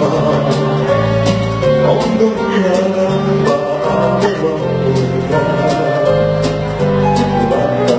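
Music with a steady beat of about two beats a second over a moving bass line.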